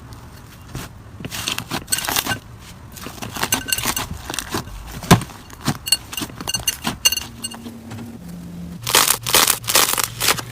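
Slime being squeezed and pressed by hand, giving irregular crackling, crunching clicks that come thicker near the end.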